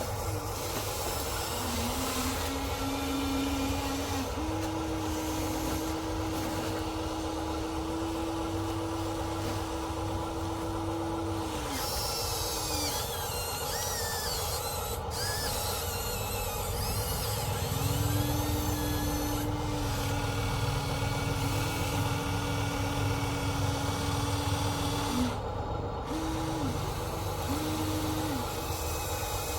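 Electric motors and gear drives of RC construction vehicles running in steady runs of several seconds, stopping and starting again, with a few short bursts near the end.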